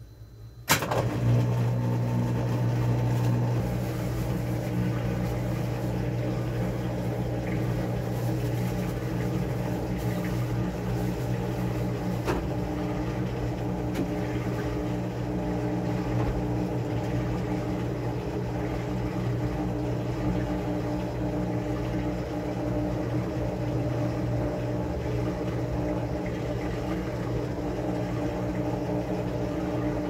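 A knock about a second in as the glass lid of a top-loading agitator washing machine shuts, then the washer runs with a steady low motor hum.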